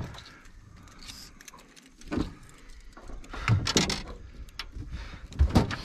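Handling noise on a fishing boat: scattered knocks, clicks and rattles, with the loudest knocks near the end.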